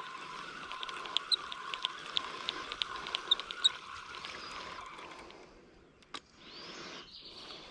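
A fishing reel being cranked in: a steady whir with quick ticks that stops about five seconds in. A single click and a short rush of noise follow.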